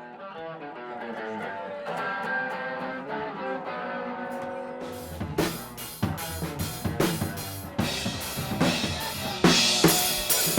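Rock music: a guitar plays sustained notes, then a drum kit comes in about halfway and the full band plays on with a steady beat.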